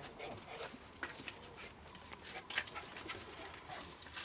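Faint bird calls over quiet outdoor background, with scattered light taps and scuffs.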